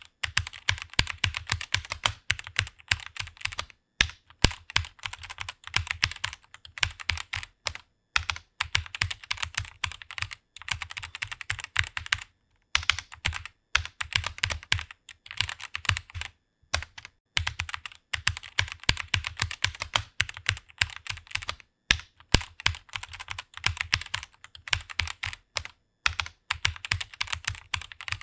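Computer keyboard being typed on quickly: a fast, continuous run of key clicks, broken by short pauses every few seconds.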